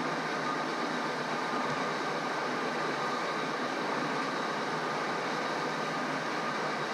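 Metal lathe running steadily while a taper is turned, the compound slide fed by hand and coolant sprayed on the cut: an even, unbroken whir with a faint steady motor hum.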